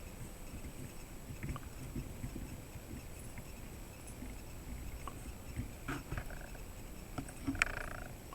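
Faint workbench handling noises while a soldering iron is worked along an IC's legs: a low rumble with scattered small clicks and ticks, and a sharper click with a brief ring near the end.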